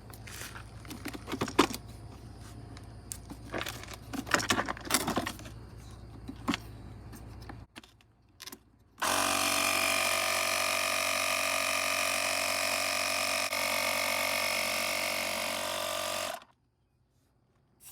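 Clicks and rattles of the jump starter's compressor tube and fittings being handled. Then the unit's built-in air compressor starts, runs steadily and loudly for about seven seconds, and cuts off abruptly.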